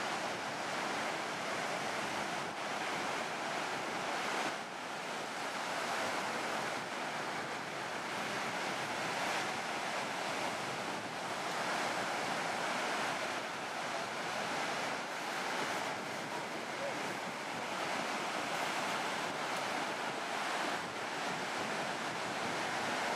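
Ocean surf breaking on a sandy beach: a steady wash of noise that swells and eases a little as the waves come in.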